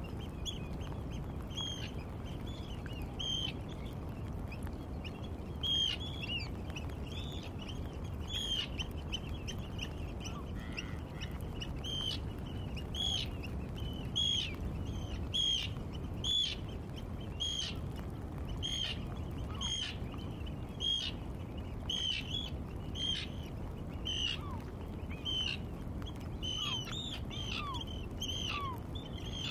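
Wadden Sea tidal-flat ambience: birds give short high calls over and over, about one a second, some of them falling in pitch, over a steady low rumble.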